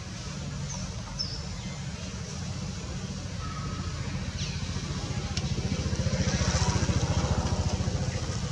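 Low, pulsing engine of a passing motor vehicle, growing louder about six seconds in and then easing off, with a few short, faint high chirps over it.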